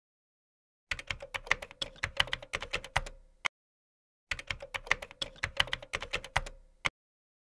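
Typing sound effect: rapid key clicks in two runs of about two and a half seconds each, each run closed by a single separate click.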